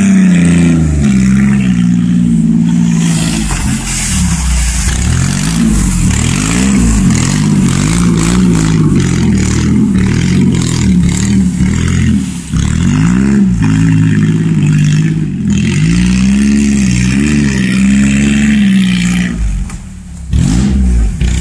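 Ford Ranger pickup's engine revving up and falling back again and again as the truck churns through mud and slush. The revs drop away briefly near the end, then pick up again.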